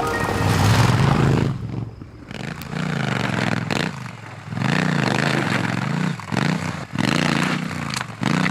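Scrambler motorcycle engine revving up and down repeatedly as it is ridden over a rough, stony off-road track, with scraping and clattering noise.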